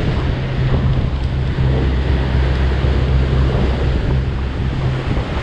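Surf breaking against a rocky shore in a steady, loud wash of noise, with wind rumbling on the microphone.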